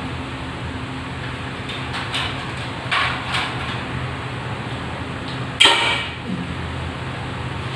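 Short scraping and knocking handling sounds from work on a ceiling fluorescent light fixture, the loudest a sharp scrape about five and a half seconds in, over a steady low hum.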